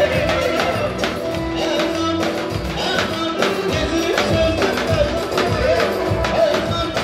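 Music with a brisk, steady percussion beat and a melody line that slides up and down.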